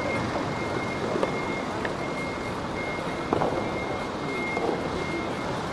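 A high, thin electronic beep that keeps cutting in and out over steady outdoor background noise, with a few faint knocks.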